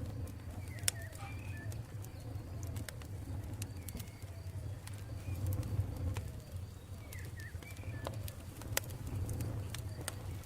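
Campfire crackling with scattered sharp pops over a low steady rumble, with faint bird calls in the background.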